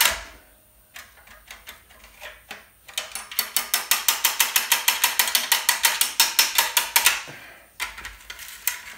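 Rapid metal-on-metal tapping, about six strikes a second, as a steel bar hooked into a Mopar flathead block's brass water distribution tube is struck at its vice grips to drive the tube out. After a couple of quiet seconds with only light ticks, a run of tapping lasts about four seconds, then a few more taps come near the end.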